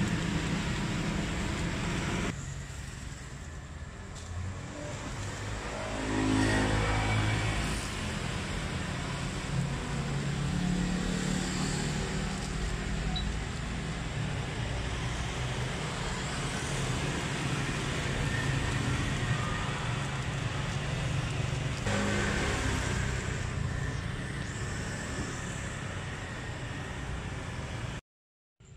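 Steady rumble of road traffic, with one vehicle's engine growing louder about six seconds in, and paper rustling as burgers are wrapped in it.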